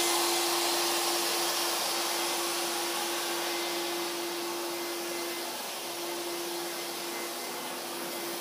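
Water-damage drying equipment, mainly carpet air movers, running to dry a flooded floor: a steady rush of blown air with one constant hum, slowly getting a little quieter.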